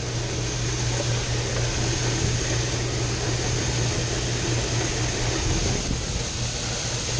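Grain augers running steadily, driven by an electric motor through a PTO cart: an even machine hum with a low steady drone.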